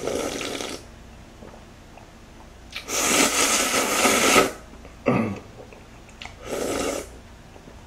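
A person slurping seafood ramen broth straight from a large glass bowl: four noisy slurps, the longest about three seconds in and lasting over a second.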